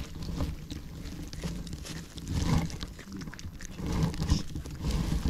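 European badger eating a piece of orange food at close range, chewing with irregular crackling and rustling in the dry leaves and grass.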